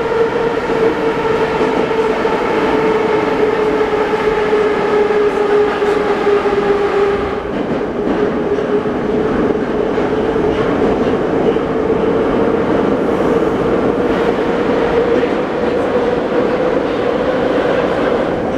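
An 81-717.5 metro car running through a tunnel, heard from inside the car: wheel and track rumble with a steady whine from the traction drive. The whine sinks slightly in pitch, its upper tones drop away about seven seconds in, and it rises a little again near the end.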